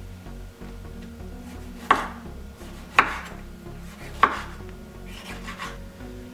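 Kitchen knife slicing a tomato into rounds on a wooden cutting board. The blade knocks on the board three times, about a second apart, followed by a softer scrape.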